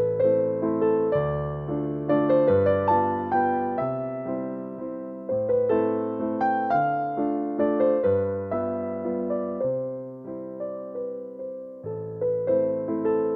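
Solo piano music, slow and gentle, with single melody notes over held bass notes, each note fading after it is struck.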